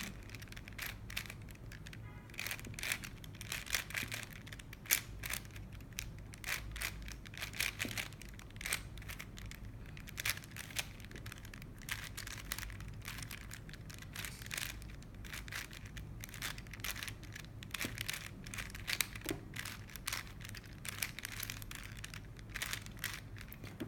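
Rubik's Cube being twisted by hand: a long run of quick, irregular plastic clicks and scrapes as its layers are turned.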